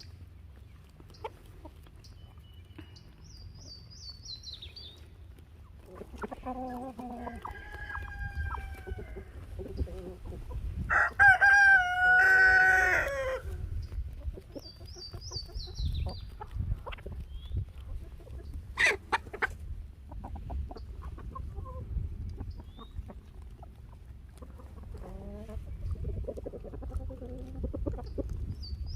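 Rooster crowing, one loud crow about eleven seconds in after a quieter call a few seconds before, with chickens clucking and high, falling chirps between.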